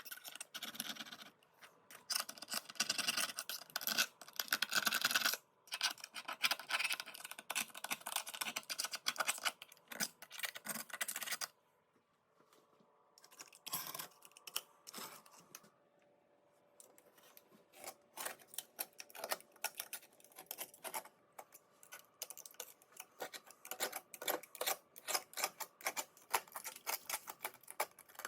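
Hand tool scratching and scraping at tile grout in quick, rapid strokes, in long spells broken by short pauses; the strokes grow sparser and lighter in the second half.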